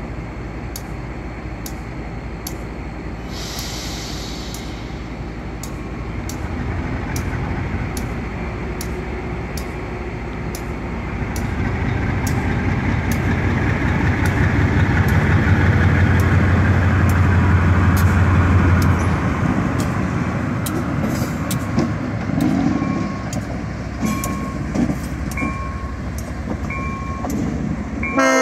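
Diesel switching locomotive's engine running as it moves through the yard, growing louder to a peak about halfway through and then easing off, with a brief hiss a few seconds in. The locomotive's horn starts right at the very end.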